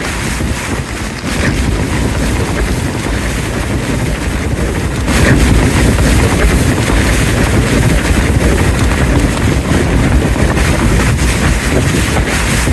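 Gale-force wind gusting hard and buffeting the microphone with a heavy low rumble, growing louder in a stronger gust about five seconds in.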